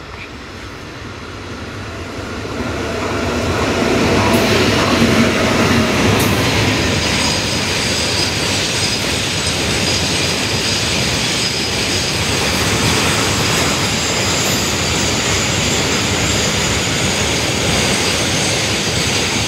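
Electric-hauled container freight train approaching and passing through a station. The rumble and wheel noise swell over the first few seconds, then hold steady and loud as the wagons go by.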